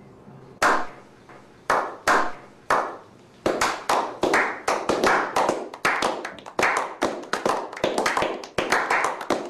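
A small group clapping: a few slow single claps about a second apart, then from about three and a half seconds in, quicker, overlapping applause.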